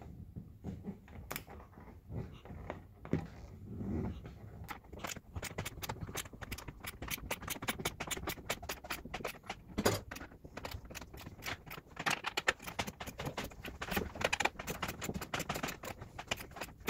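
Quarter-inch ratcheting wrench with a 10 mm hex-drive socket bit clicking in quick runs as a dashboard bolt is turned, sparse at first and then dense and steady from about five seconds in.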